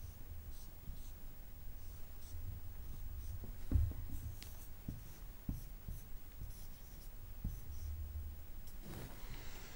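Marker pen drawing on a whiteboard: faint short strokes and light taps of the felt tip, with a soft thump about four seconds in.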